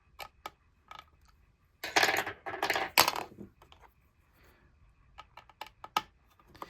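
Small sharp metallic clicks of a precision screwdriver and tiny screws being worked out of a MacBook, with a loud clattering rattle of small metal parts about two seconds in that lasts over a second.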